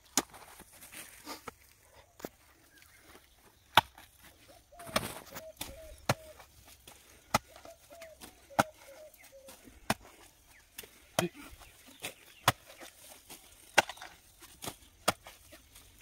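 Sharp knocks or chopping strikes at irregular intervals, roughly one a second. In the middle comes a string of short clucking calls.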